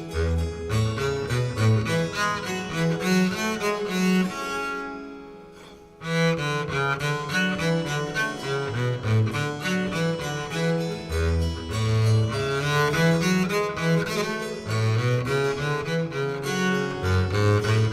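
Bowed string music, a low bass line moving under higher melodic notes. It fades away between about four and six seconds in, then starts again abruptly.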